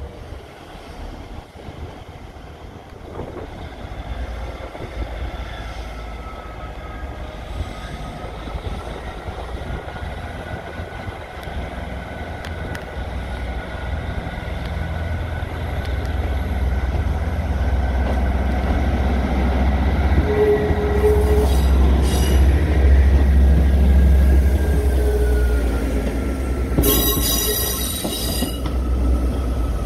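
British Rail Class 158 diesel multiple unit running through the station, its diesel engines' deep rumble growing louder as it draws near, with a long high whine that wanders slightly in pitch. A short burst of sharp, noisy sound comes near the end.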